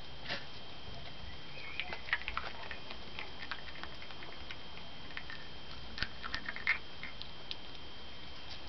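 Skunk eating quail eggs and fruit: a scatter of small sharp clicks and crunches as it bites and chews, bunched about two seconds in and again around six to seven seconds.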